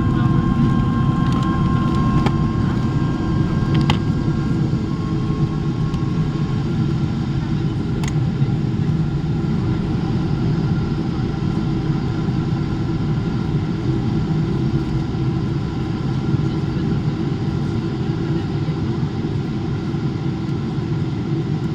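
Boeing 777-300ER cabin noise heard from a window seat: a steady rumble of airflow and its GE90 engines, with a thin whine that fades out about six seconds in.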